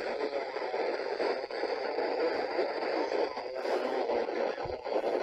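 CB radio receiving with nothing readable on the channel: a steady rush of band noise and hiss from the set's small external speaker, taken from a Nokia car phone kit. Garbled sideband splatter from skip conditions is mixed into the noise.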